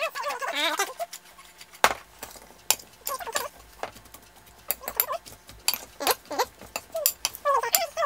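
Metal spoon clinking and scraping against a porcelain bowl as a dressed cucumber salad is stirred, giving sharp, irregular clinks.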